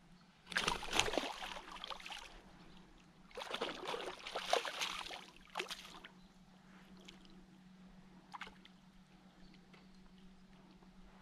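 Hooked pike thrashing at the water's surface among lily pads, splashing in two long bursts about half a second in and again from about three seconds, then a short splash near six seconds and a small one near eight.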